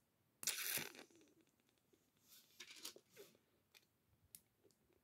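Small plastic LEGO pieces handled and fitted together: a brief rustling scrape about half a second in, then a scatter of light clicks and plastic rattles.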